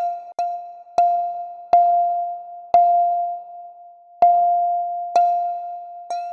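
Synthesized pluck from a u-he Zebralette 3 patch, played about seven times on the same note from a MIDI keyboard. Each note has a sharp, clicky attack and rings out as it decays, and some notes are struck harder and louder than others.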